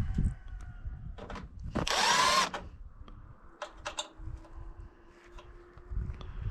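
Power drill run in one short burst about two seconds in, its motor whine rising and then falling, among scattered light clicks and knocks of handling.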